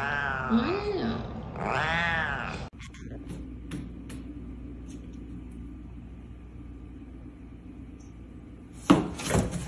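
A cat yowling: long, drawn-out meows that rise and fall in pitch, ending about two and a half seconds in. After that there is only a low steady hum with a few faint ticks, and a louder burst of noise near the end.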